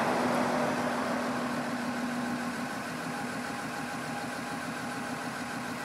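Perkins diesel engine of a Hyster H12.00XL forklift running steadily at low revs, with a steady hum that stops about two and a half seconds in while the forks are lowered.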